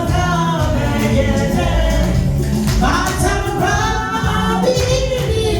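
Gospel music: several voices singing over a band with a steady bass line.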